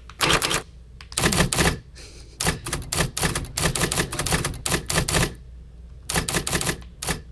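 Typewriter sound effects from the Hanx Writer app, imitating an IBM Selectric: fast runs of keystroke clacks as text is typed, broken by short pauses about a second in, near two and a half seconds, and again around six seconds.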